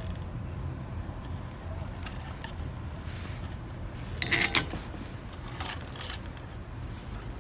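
Small clicks and rattling rustles of wires and small metal parts being handled on a workbench, with a louder scrape-rattle about four and a half seconds in, over a low steady hum.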